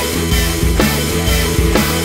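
Background music: a rock-style instrumental with guitar and a steady drum beat.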